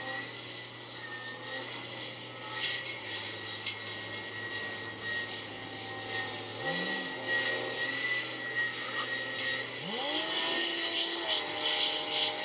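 Kawasaki 90ZV wheel loader's diesel engine running at a steady low idle. It gives a short rev about seven seconds in, then rises into a strong rev near ten seconds in as the machine works the sand pile. A steady high whine runs underneath, and a couple of sharp knocks come early on.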